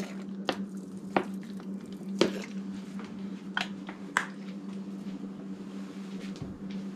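Charcoal lighter fluid squirted from a squeezed plastic bottle onto firewood, heard as a few wet squishes and short clicks over a steady low hum.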